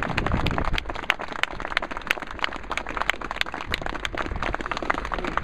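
A crowd applauding with many irregular hand claps, a little fuller in the first second and then thinning slightly.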